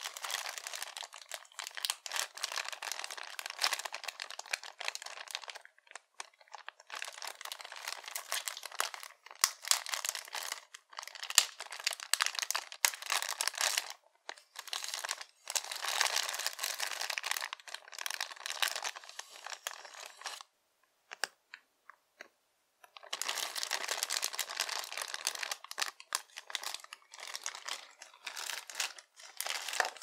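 Clear plastic bag crinkling as rolls of washi tape are handled inside it. It comes in bursts with brief breaks, and a longer pause about two-thirds of the way through.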